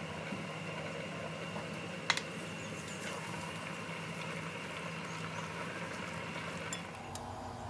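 Steady hum of a small motor with a few held tones, and a single sharp click about two seconds in.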